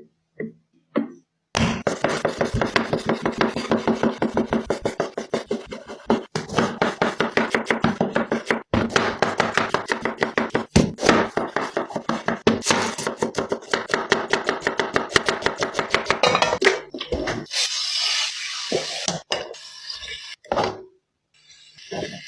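Rapid knife chopping on a cutting board, about five quick strokes a second, with a couple of brief pauses. Near the end the chopping gives way to a shorter, noisier stretch.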